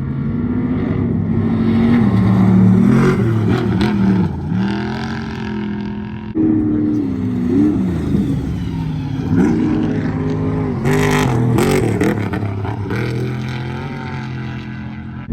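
Off-road race vehicle engines revving hard, their pitch swooping up and down again and again, with an abrupt switch to another engine about six seconds in. Short crackling bursts come through near eleven seconds.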